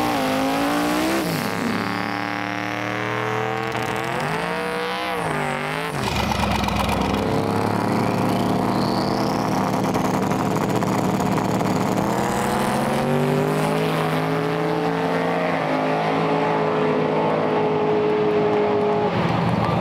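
Drag-race car engines on a drag strip. For the first six seconds an engine revs up and down through a tire-spinning burnout. Then the sound changes suddenly to cars running at the line, and about twelve seconds in the engines climb in pitch as they launch and pull away down the track.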